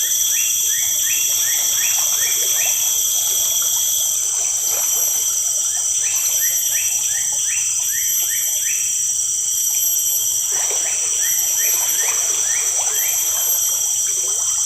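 Riverside ambience: a steady, high-pitched drone of insects throughout, with an animal, likely a bird, calling in runs of quick, short notes, over faint running water.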